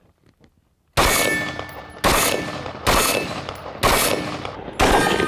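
AR-15-pattern carbine fired five times in slow, steady semi-automatic shots, about one a second, starting about a second in. Each shot is followed by a long fading echo.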